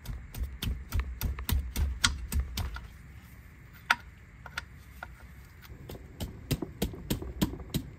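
Ratchet clicking at about five clicks a second as it turns a 10mm hex socket to crack off and back out the gearbox fill plug. It pauses in the middle with a few stray clicks, then clicks in quick runs again near the end.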